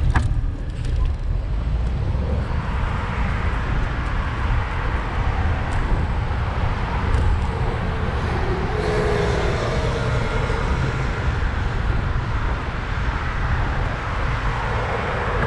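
Road traffic noise heard from a moving bicycle, swelling about two seconds in, over a steady low rumble of wind on the microphone.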